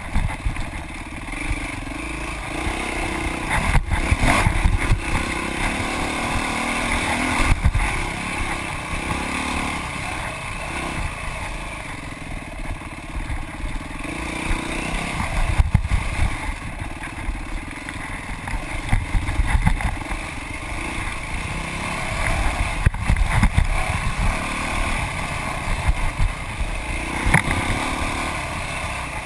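Dirt bike engine heard from on board, revving up and down over and over as it is ridden along a rough woods trail, with a sharp knock now and then.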